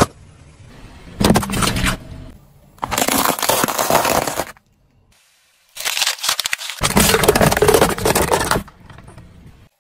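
Car tyre rolling over and crushing plastic cups of coloured liquid and aluminium soda cans: three separate bursts of cracking, crackling plastic and crumpling cans, the last and longest near the end.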